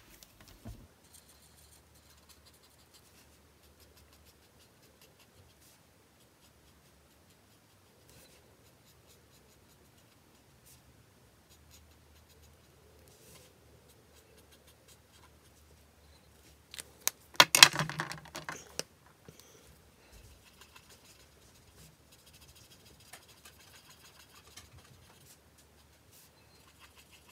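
Faint scratchy strokes of an Ohuhu alcohol marker nib colouring on card stock. About two-thirds through comes a short, louder burst of clicks and plastic rattle as markers are handled, and then the quiet strokes resume.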